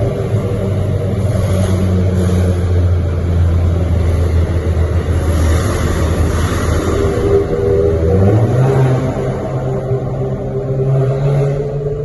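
Volkswagen Golf TSI engine with stage 2 tune, downpipe and sport exhaust, running at a steady low pitch, then rising in pitch about eight seconds in as the car accelerates and holding the higher note.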